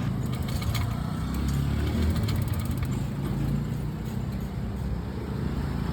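Steady low rumble of motor vehicle engines, with a few faint light clicks in the first second.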